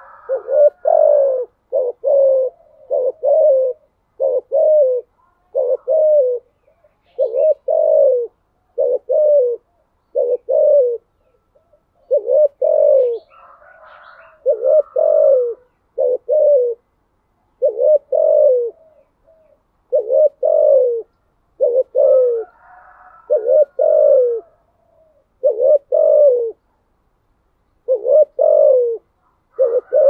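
A spotted dove cooing a long series of short, deep coos, about one a second and often in pairs. This is the rapid, urging call pattern that keepers call 'thúc gù'.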